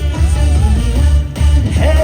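Live trot band music: a loud, steady bass-drum beat under a wavering melody line, with no words sung in this stretch.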